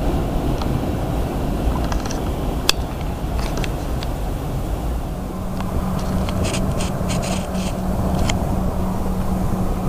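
Low rumble of the last cars of a freight train rolling away on the rails, with scattered sharp clicks and scrapes. About five seconds in, a steady low hum joins the rumble.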